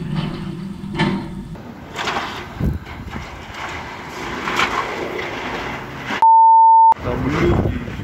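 Blizzard wind blowing in strong gusts, with a few sharp knocks. About six seconds in, a steady one-tone bleep blanks out all other sound for under a second.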